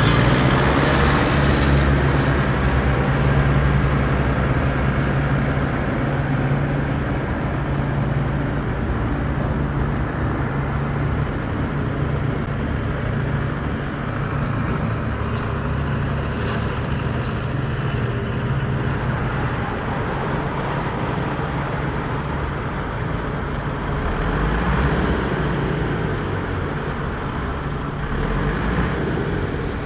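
A radio-controlled construction vehicle running, with a steady, low engine-like hum.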